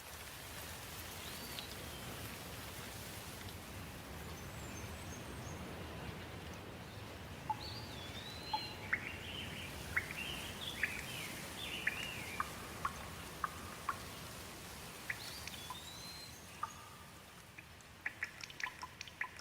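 Steady rain with songbirds calling over it: scattered rising and falling chirps, busiest about halfway through. Near the end, sharp drip-like clicks take over.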